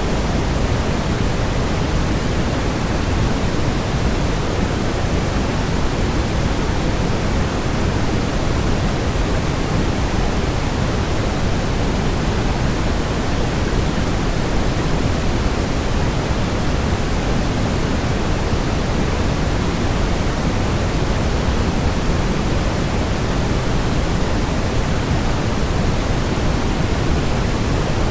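Waterfall white noise: a steady, unchanging rush, heavier in the low end.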